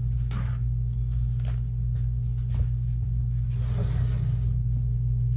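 A steady low hum from a running machine, with a paper towel torn off its roll about half a second in and paper towels rustling as they are laid on the table around four seconds in.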